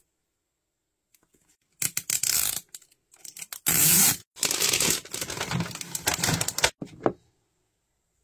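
Toy packaging being torn open with its tear strip: ripping and crinkling of the wrap in several bursts from about two seconds in to about seven seconds in.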